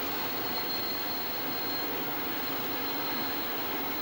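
RENFE class 321 diesel locomotive running steadily as it hauls a freight train: a continuous engine drone that holds an even level throughout.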